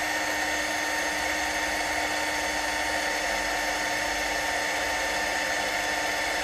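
Cordless drill running at a steady speed, boring a 2.1 mm pilot hole through a metal plate: an even motor whine with the cutting noise of the bit.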